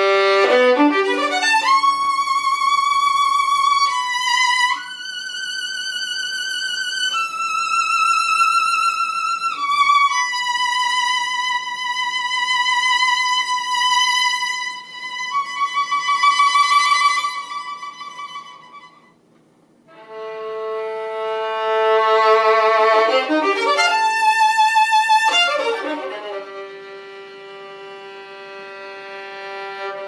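Solo violin playing long held notes with vibrato, linked by quick sliding runs up and down in pitch. The playing breaks off briefly a little past the middle, then resumes with a fast rising and falling run and settles on a long low held note.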